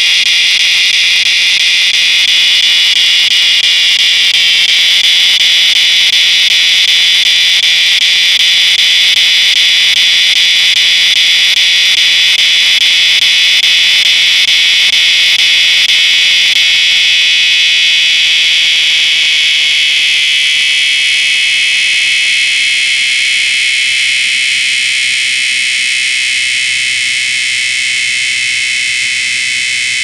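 Dog day cicada singing close up: one continuous, loud, high buzzing drone that holds steady and eases off slightly in loudness in the second half.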